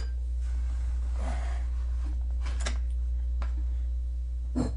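Steady low hum, with a few faint clicks and a sharper knock near the end as a wooden serving board of meat and leaves is shifted on the table.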